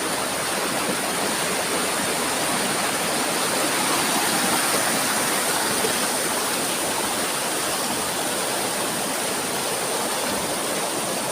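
Small waterfall and river water rushing, a steady, even rush with no breaks.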